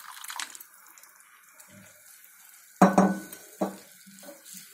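Water poured into a pan of poppy-seed paste tails off. Then a wooden spatula scrapes and stirs through the thin paste in a non-stick frying pan, with one loud stroke about three seconds in and a few lighter strokes after it.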